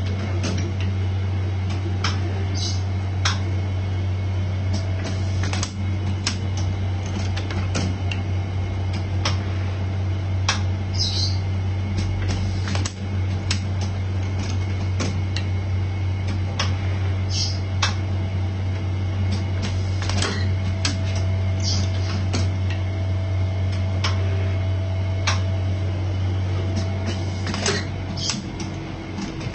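Automatic vacuum wax injection machine running: a steady low hum throughout, with irregular clicks and a short hiss of air every few seconds as its pneumatic clamp and mold conveyor cycle.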